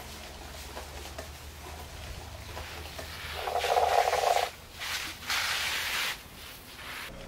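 Iced coffee slurped through a straw: a loud sucking gurgle starting about three and a half seconds in and lasting about a second, followed shortly by a second, hissier burst.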